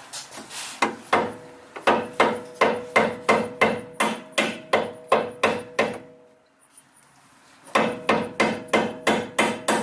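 Hammer blows on steel, about three a second, each with a metallic ring, driving a seized bolt through with a nut threaded on its end to protect the threads. The hammering stops for about two seconds about two-thirds through, then resumes faster.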